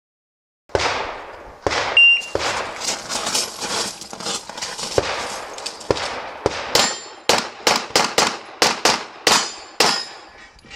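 A rapid string of handgun shots, some followed by the short metallic ring of hit steel targets. The shots begin about a second in and come faster and closer together toward the end.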